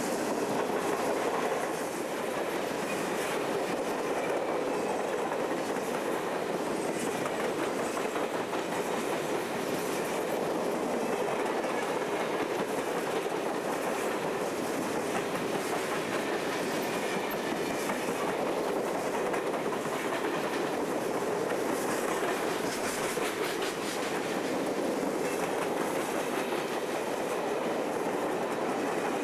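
A long freight train of open-top hopper cars rolling past close by: a steady rumble of steel wheels on the rails with the clickety-clack of wheels passing over rail joints.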